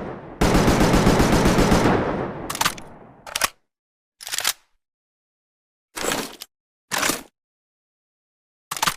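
Improvised AKM assault rifle sound effect: a rapid burst of automatic fire lasting about a second and a half, its echo dying away, followed by a series of short separate clacks, like the rifle's action being worked.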